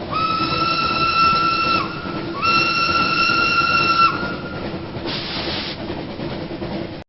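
Train whistle sounding two long blasts of about two seconds each, the pitch sliding up briefly at the start of each, over the continuous running noise of a train. A short hiss about five seconds in.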